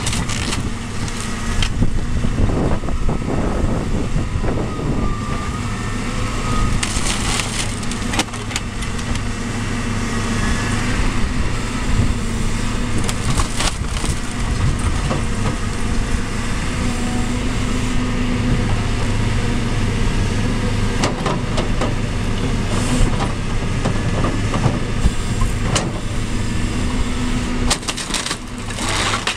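Caterpillar 325B tracked excavator's diesel engine running steadily under load while its demolition grab tears apart a house roof. Cracks and crunches of breaking timber and roof tiles come at intervals, several sharper ones around the middle and near the end.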